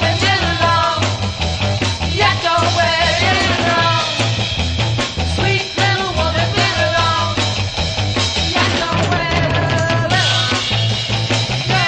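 Late-1960s psychedelic rock recording: a full band playing with a steady beat and a sung or lead line over it.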